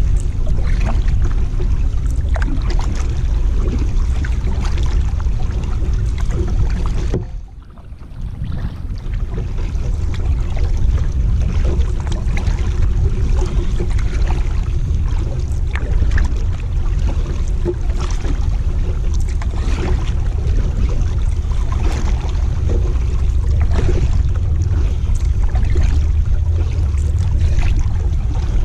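Kayak paddle strokes, the blades dipping and splashing in the river water, over a steady low rumble. The sound drops out briefly about seven seconds in.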